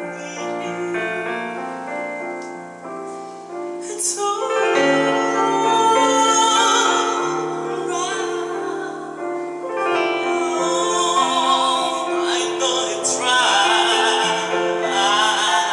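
Piano accompanying a solo singer in a slow ballad. The piano plays alone at first, then the voice enters about four seconds in and sings with vibrato over it.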